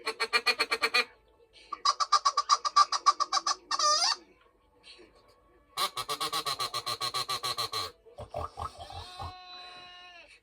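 Recorded farm-animal sound effects: several bursts of rapid, pulsing calls, with a short swooping squeal in the middle and a run of falling squeals near the end.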